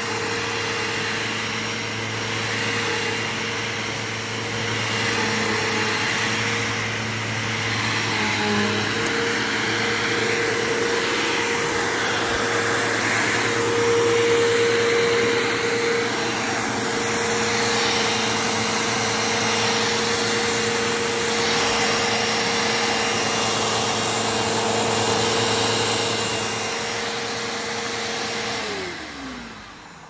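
Bissell PowerForce bagged upright vacuum cleaner (2002, model 3522) running steadily while vacuuming, a loud even motor hum with a whooshing airflow. Near the end it is switched off and the motor winds down, its pitch falling as it fades.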